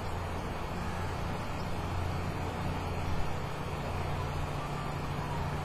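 Steady low hum of distant road traffic, with one brief knock about three seconds in.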